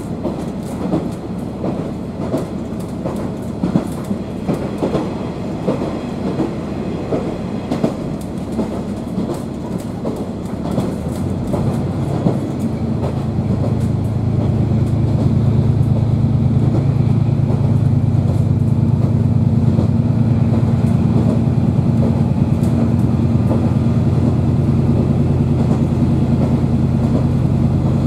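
Inside a KiHa 40 diesel railcar on the move: wheels clattering over the rails with irregular knocks, then about halfway the diesel engine's steady low drone comes in and grows louder, staying level to the end.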